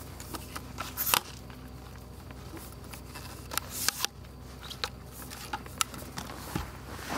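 Handling noise from a camera tripod being picked up and set up: scattered clicks, knocks and scrapes, the sharpest about a second in, over a faint steady low hum.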